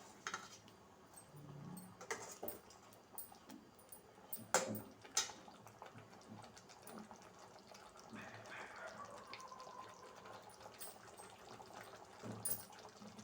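Faint sounds of chicken gravy cooking in a pan, with a few light clicks and knocks. About eight seconds in, a faint tone falls in pitch for a second or two.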